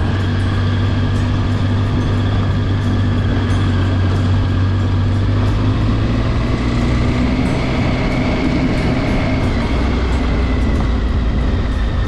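Triumph motorcycle engine running at a steady low speed while riding on a dirt road, with rumbling tyre and wind noise over it. The engine note drops lower a little past halfway.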